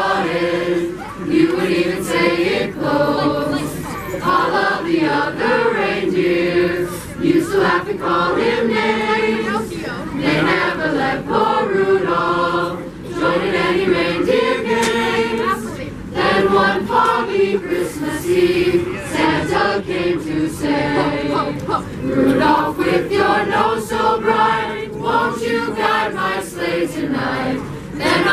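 Choir singing a Christmas carol, phrase after phrase without a break.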